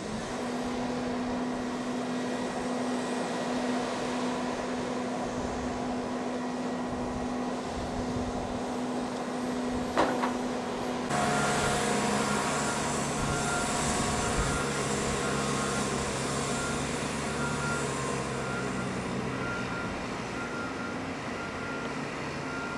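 A vehicle's engine and road noise running steadily, with a single click a little before the sound changes abruptly midway. After the change a different steady engine hum carries on under a short high electronic beep that repeats a little faster than once a second.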